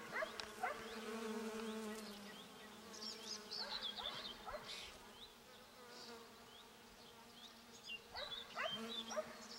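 Honeybees buzzing as they work blackberry blossoms: a steady low hum that is louder in the first two seconds and again near the end, as bees come close. Short high chirps sound in the background.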